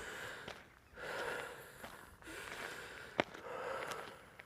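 A person breathing in and out close to the microphone, in three soft breaths, with a single sharp click about three seconds in.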